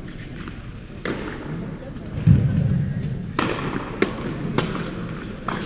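Tennis ball bounces and racket strikes in an indoor tennis hall: a handful of sharp knocks spaced about a second apart, with one heavier thud just after two seconds, over background voices.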